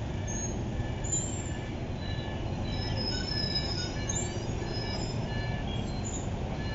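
Busy street traffic: a steady rumble of passing motorbikes and buses, with scattered short high horn beeps.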